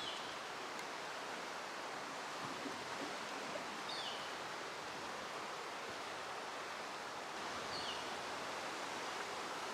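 Steady outdoor background hiss with a bird's short, high, falling call heard three times, about four seconds apart.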